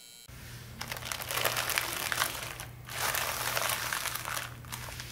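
Plastic poly mailer bag crinkling as it is handled, in two bouts with a short pause between.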